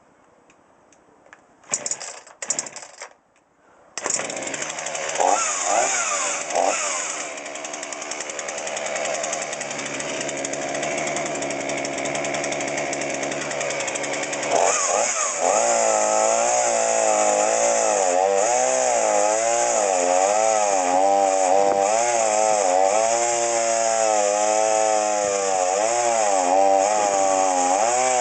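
Two-stroke chainsaw being pull-started: a few short bursts about two seconds in, then the engine catches about four seconds in and runs steadily. From about fifteen seconds on it runs faster and louder, its pitch wavering up and down as the throttle is worked.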